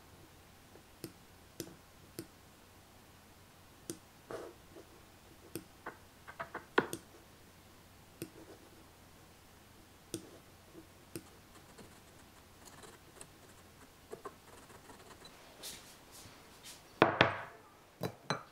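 Sparse computer-mouse clicks and light taps on a desk, a few seconds apart, with a louder knock near the end.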